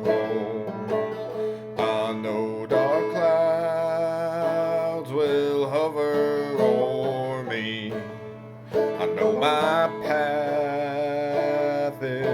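Banjo played clawhammer style, picking out a slow melody with ringing notes. The playing eases briefly about two-thirds of the way through, then picks up again.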